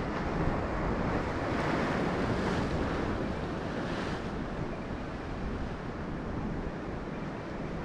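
Ocean surf washing on the shore, with wind on the microphone; the surge is strongest over the first few seconds, then eases.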